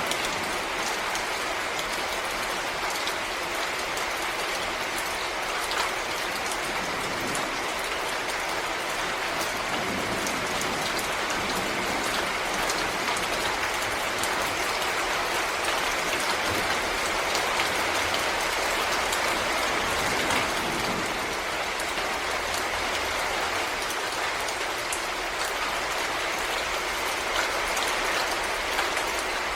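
Steady rain falling in a forest: an even hiss dotted with countless small drop ticks.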